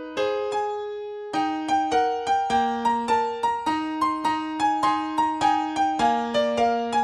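Solo piano accompaniment playing a light, even tune of about three notes a second over held bass notes. One note is held just after the start before the tune picks up again about a second and a half in.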